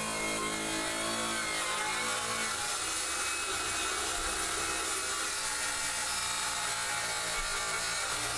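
Handheld circular saw running steadily as it cuts a long straight line through a plywood panel along a guide rail.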